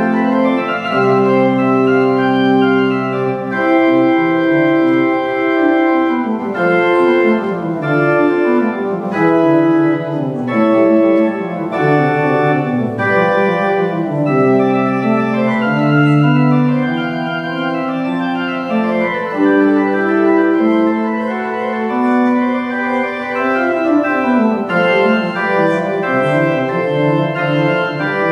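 Organ music: sustained chords with running lines of notes moving up and down.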